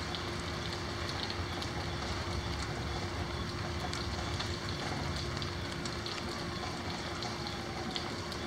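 Steady rain falling, with scattered faint drip ticks and a steady low hum underneath.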